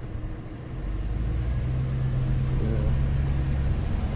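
Off-road 4x4 engine running as it drives slowly through a rocky canyon wash. Its low, steady hum grows louder about a second in.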